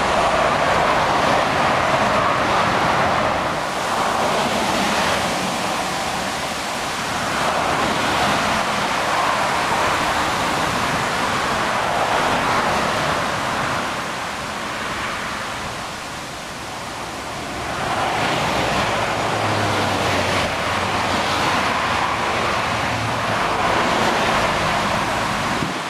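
Motorway traffic noise: a steady hiss of tyres from cars, vans and lorries passing at speed, swelling and fading as vehicles go by. A low engine hum from a heavy vehicle comes in for a few seconds after the middle.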